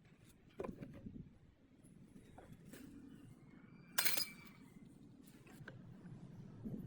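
Hard small objects being handled on a work surface: a knock about half a second in, a few light ticks, then a sharp clink with a brief ring about four seconds in.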